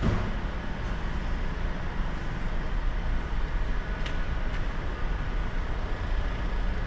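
A steady low mechanical rumble, with a faint click about four seconds in.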